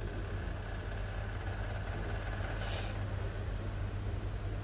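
Steady low hum over even background noise, with one short high-pitched hiss about two and a half seconds in.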